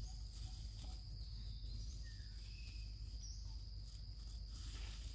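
Steady high-pitched insect drone, with a low rumble underneath and a few faint short chirps in the middle.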